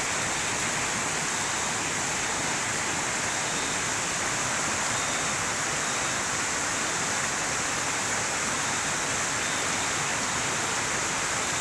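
Steady rush of a flowing stream: an even hiss of running water that does not change.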